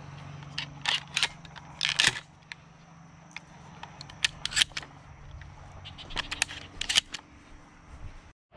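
Shotgun shells being pushed one by one into a semi-automatic shotgun's magazine tube through the loading port: several clusters of sharp metallic clicks and snaps.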